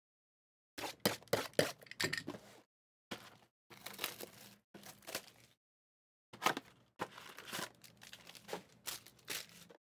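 Crinkling and tearing of plastic wrap and cardboard as a sealed box of 2023 Legacy football trading cards is opened and its packs handled, in several separate bursts.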